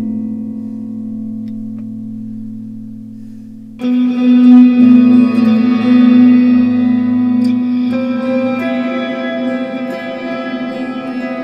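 Electric guitar played through an EarthQuaker Devices Afterneath V3 reverb pedal. A held chord dies away in a long reverb tail, then a louder chord is struck about four seconds in and rings on as a thick ambient reverb wash, its notes shifting a couple of times.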